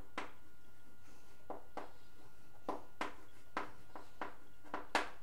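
Chalk writing on a chalkboard: a string of short, sharp taps and strokes, about nine over a few seconds, with the loudest one near the end.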